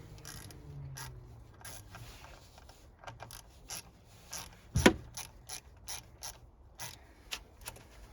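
Ratchet clicking in short, irregular runs as the 6 mm bolt on the MAF sensor's intake hose clamp is backed off, with one louder knock about five seconds in.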